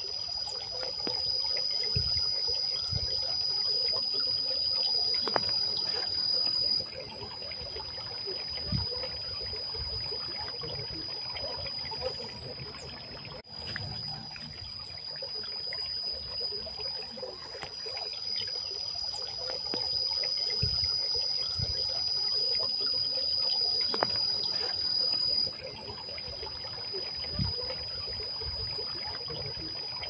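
Water trickling and spilling down the tiers of a stone garden fountain, a steady splashing, with insects keeping up a steady high-pitched whine over it.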